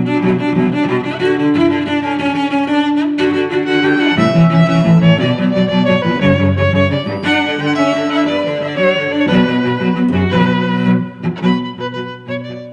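Background music played on bowed strings, violin and cello, in held, changing notes.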